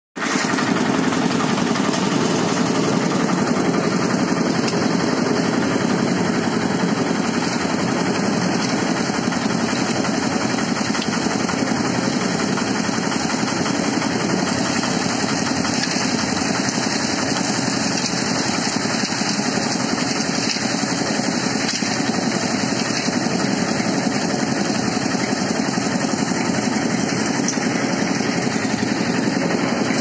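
A half-bag concrete mixer running at a steady speed, its engine giving a fast, even beat as the drum turns.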